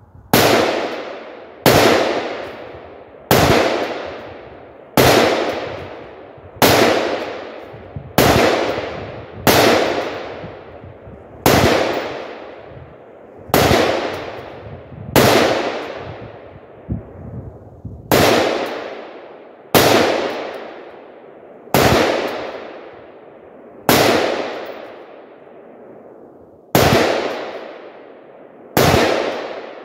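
AR-15 rifle firing 5.56 rounds in a string of about seventeen aimed semi-automatic shots, roughly one every one and a half to two seconds with uneven gaps. Each sharp report rings off and fades before the next.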